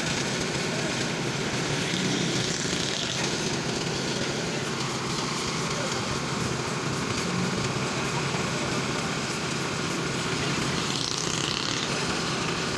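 Engine of road-construction machinery running steadily at idle, a constant hum under a broad noise.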